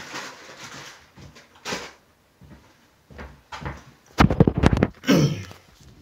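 A door being handled: a burst of rapid rattling knocks about four seconds in, followed by a short falling creak.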